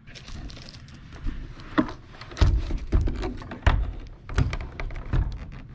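Plastic housing of a MaxxAir roof fan knocking and thudding against the roof opening as it is lowered in for a test fit, about half a dozen irregular thumps.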